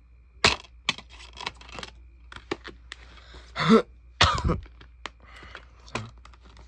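Plastic DVD cases and discs being handled: a string of clicks and rattles, with a brief throat sound about halfway through and a loud knock just after it.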